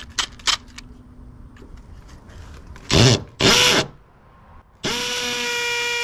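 Cordless hammer drill in hammer mode boring into brick with a masonry bit. After a few clicks and two short bursts of noise, it starts about five seconds in and runs at a steady buzzing pitch.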